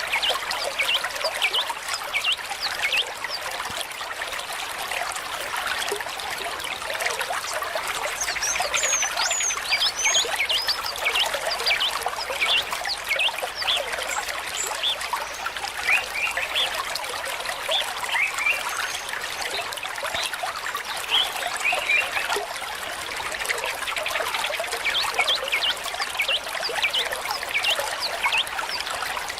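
Water trickling and bubbling steadily, with scattered short high chirps of small birds.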